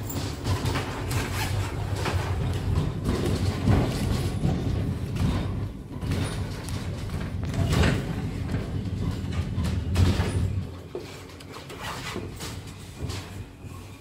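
Funicular car running on its rails: a steady low rumble with frequent knocks and rattles from the wooden car. The rumble stops about eleven seconds in as the car comes to a halt, leaving a few scattered knocks.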